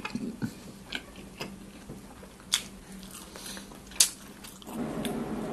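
Close-up mouth sounds of a man chewing a mouthful of hot dog: soft wet chewing and smacking with scattered small clicks, two of them sharper. Near the end a steady hiss comes in under the sound.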